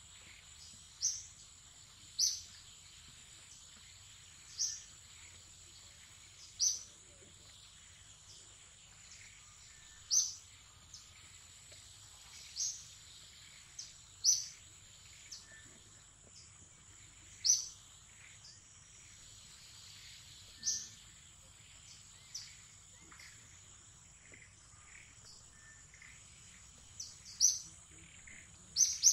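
Outdoor wildlife ambience: a steady high insect drone, with a bird giving short, sharp high chirps about a dozen times, irregularly every two to three seconds.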